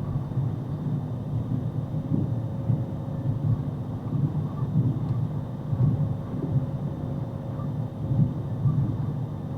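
Low rumble of a moving vehicle, rising and falling unevenly, with no horn sounding.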